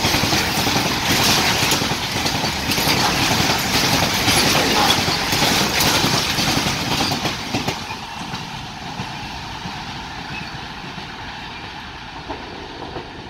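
BCNHL covered freight wagons rolling past at speed, wheels clattering over the rail joints. About eight seconds in the last wagon passes, and the rumble fades away as the train recedes.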